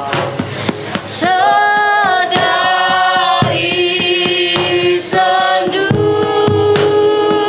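Several voices singing long held notes together, a cappella in style, with the pitch shifting every second or two. Sharp percussive knocks sound at intervals between the notes.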